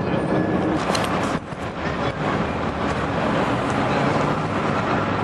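Steady, loud engine noise from passing vehicles, with a brief dip about one and a half seconds in.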